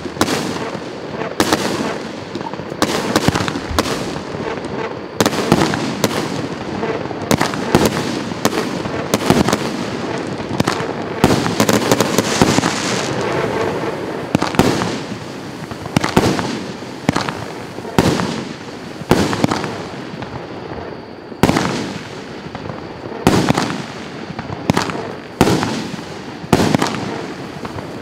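A 25-shot consumer fireworks cake ('Bombastic') firing shot after shot, about one a second, each a sharp bang followed by a decaying crackle of the bursting stars. In the middle the shots come closer together and merge into a dense wash of crackling.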